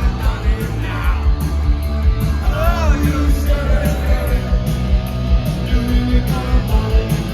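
Punk rock band playing live through a loud PA, with a fast steady drumbeat under dense guitar and bass, and a singer's shouted vocal lines coming and going.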